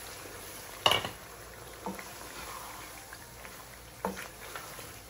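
Curry sauce sizzling and bubbling in a stone-coated nonstick wok as raw chicken pieces are stirred in with a wooden spatula. The spatula knocks sharply against the pan about a second in, then lightly twice more.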